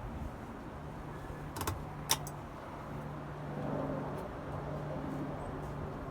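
Hampton Bay 52-inch Nassau ceiling fan running: a steady low motor hum with a hiss of moving air, and two sharp clicks about two seconds in.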